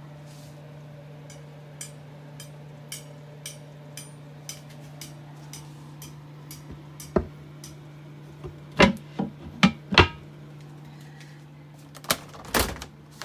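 Hard knocks and clacks of a sink cover being lifted out and set down on a solid-surface kitchen countertop: light ticks at first, then several sharp knocks in the second half and a pair near the end, over a steady low hum.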